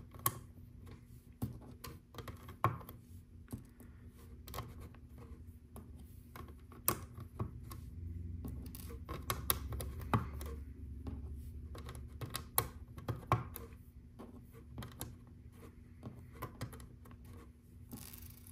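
Small plastic LEGO 1x1 round tiles clicking and tapping as they are picked up and pressed onto the studs of a building plate, in irregular sharp clicks.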